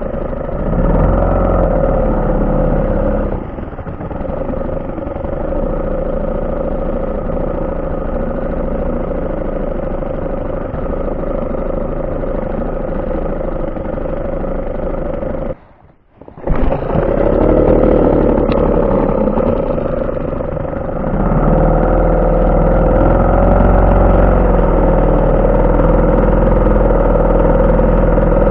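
HDX 3.6 small two-stroke outboard motor running steadily, pushing a rowing boat, with a heavier low rumble setting in about three quarters of the way through. The sound drops out for about half a second halfway through.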